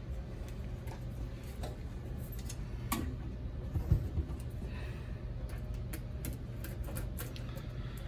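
Light clicks and taps of a hand screwdriver working the Torx cover screws and of hands handling the aluminium case of an HP 70427A module. A single dull knock about four seconds in as the unit is turned on its side. A low steady hum underneath.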